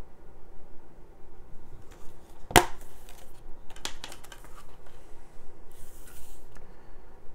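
Plastic Blu-ray case handled and opened: a sharp click about two and a half seconds in, another about a second later with a few lighter clicks, and a brief rustle of paper near the end.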